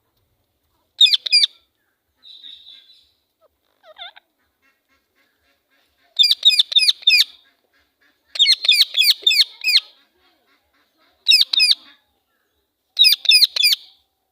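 Female parrot calling angrily in five loud bursts of rapid, shrill screeches, each burst three to six calls long, with pauses between. A softer chatter and a short call come between the first two bursts.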